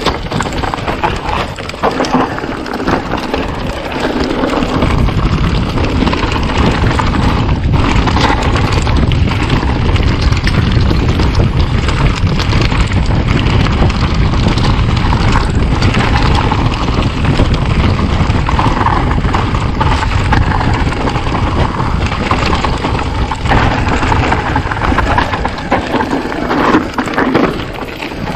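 Mountain bike riding over a rough trail: a continuous clatter of small rattles and knocks from the bike, with a heavy low wind rumble on the microphone that builds up about four seconds in.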